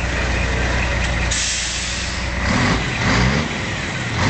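Scania R420's straight-piped inline-six diesel, run without a muffler, idling, with a burst of air hiss about a second in; then the engine is revved up in short blips near the end.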